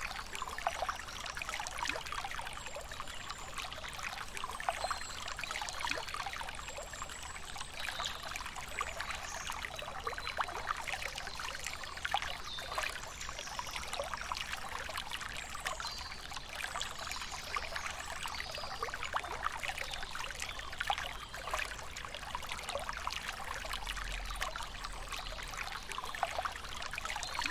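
Small forest stream trickling and splashing steadily over rocks, with faint high bird chirps now and then.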